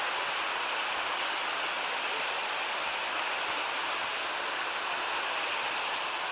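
Steady rush of water falling and tumbling down the cascades of a mountain stream, an even hiss with no breaks.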